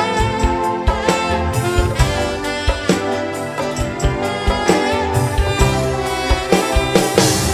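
Live dangdut orchestra playing an instrumental passage: a melodic lead line over keyboard and bass, with steady drum strikes.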